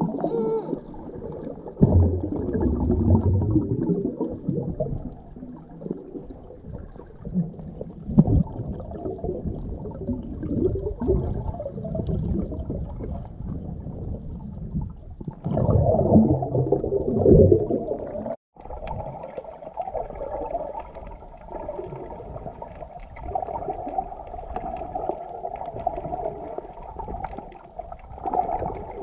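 Muffled underwater sound from a camera held under water while snorkeling: low, uneven surging and gurgling of water moving around the camera housing. It cuts out for an instant about two-thirds of the way through.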